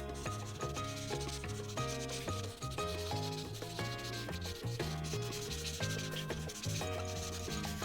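Paint marker strokes rubbing back and forth on paper as an area is coloured in, over background music with a stepping bass line and melody.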